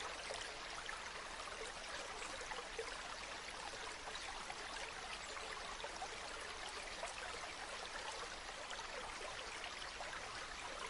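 A small river stream flowing and trickling steadily, a continuous splashing babble.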